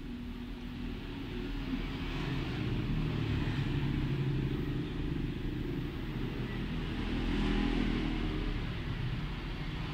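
Low engine rumble of a passing motor vehicle, building over the first few seconds and swelling again about three-quarters of the way through.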